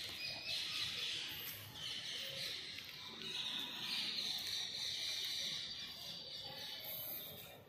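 Birds chirping, a continuous high-pitched chatter.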